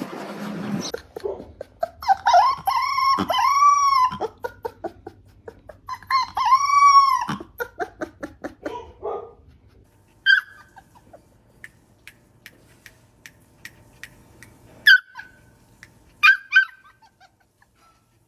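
A puppy howling: a few short yelps, then two long howls that rise and fall, each about a second and a half. A few short sharp yips and faint ticks follow.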